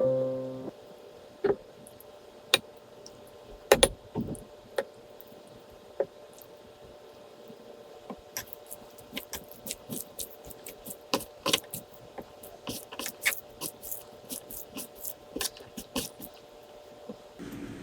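Small clinks and taps of tableware and food being handled at the table, a few scattered knocks at first, then a dense run of quick clicks through the middle.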